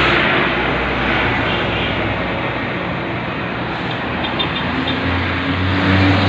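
Road traffic noise: a vehicle passes close by at the start, and an engine's low steady hum comes in about five seconds in.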